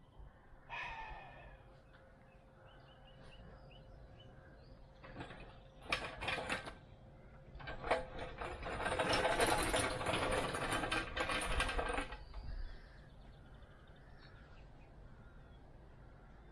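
Workshop handling noises: a few knocks and clatters, then about four seconds of continuous rattling about halfway through.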